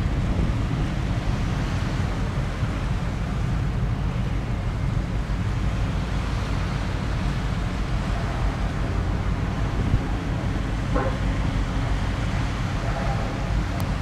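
Wind buffeting the microphone, a steady low rumble, over the wash of water.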